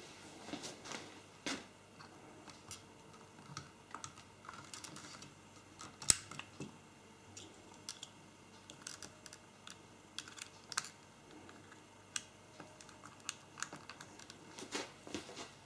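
Irregular small plastic clicks and handling noise from fingers working the battery/SD card compartment door and its lock slider on a Panasonic HX-WA20 camcorder, with the sharpest click about six seconds in.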